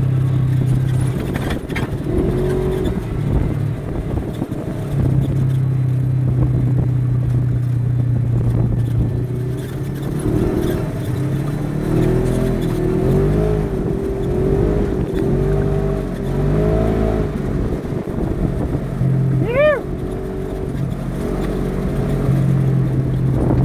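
Side-by-side UTV engine running while driving on a dirt track, a steady drone that falls away and comes back as the throttle changes.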